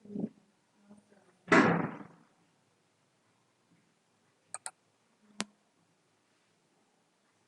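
A short loud thump-like burst of noise about one and a half seconds in, fading quickly, then a quick pair of sharp clicks and one more click a moment later, typical of a computer mouse being clicked.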